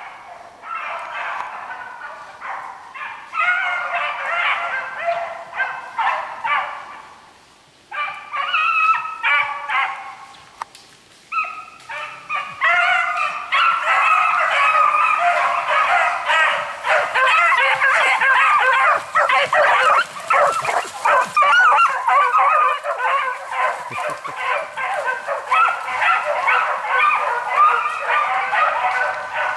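A pack of hunting hounds baying in full cry on a hare's scent trail, many voices overlapping. The calls come in patches with short lulls in the first dozen seconds, then grow louder and more continuous from about twelve seconds on.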